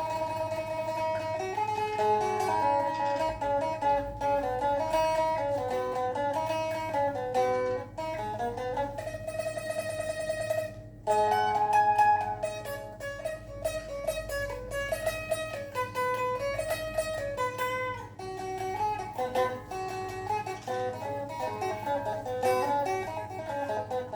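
Thai phin, the Isan plucked lute, playing a fast picked melody of short notes over a steady low drone. About ten seconds in, one note is held with a rapid tremolo for a couple of seconds, then the quick picking resumes.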